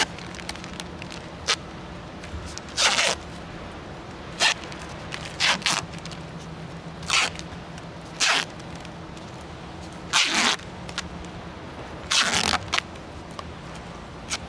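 Duct tape being pulled off the roll in short, rasping rips, about nine times, as it is wrapped around the sleeve on PEX water lines.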